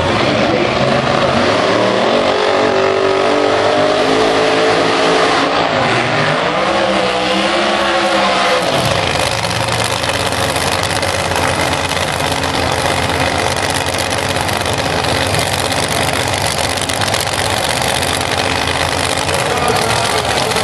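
Supercharged drag-racing engine running loud. For the first nine seconds or so its pitch rises and falls with throttle blips. It then settles into a steady, dense roar.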